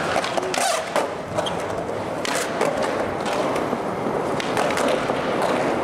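Skateboard wheels rolling on smooth concrete transitions, a continuous rumble, with sharp knocks from the board about half a second in and again around two and a half seconds in.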